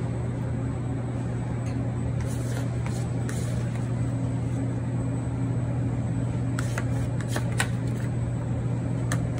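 Steady low mechanical hum of commercial kitchen equipment, with a few faint light clicks and taps.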